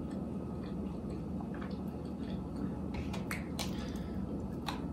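Chewing and mouth sounds of people eating Chinese takeout close to the microphone, with a few sharp clicks scattered through, most of them a little after the middle.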